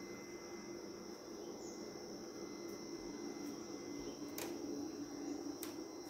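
Steady, high-pitched insect chorus of crickets or similar insects, with a low steady hum beneath it. Two sharp clicks come over it, at about four and a half and five and a half seconds in.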